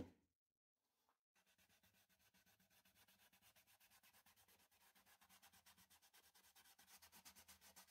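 Cloth pad rubbing shellac into the inside of a turned macrocarpa pine bowl, in quick, even back-and-forth strokes about six a second, faint. The rubbing starts a little over a second in, after a short knock at the very start.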